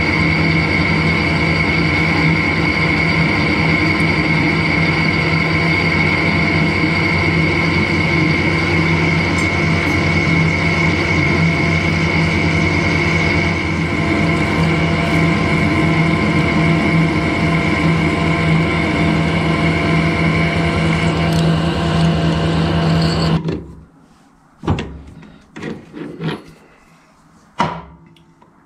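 Harrison metal lathe running under power while turning a small metal part, a steady mechanical hum with a high gear whine. About three-quarters of the way through the lathe shuts off and falls quiet, followed by a few sharp knocks.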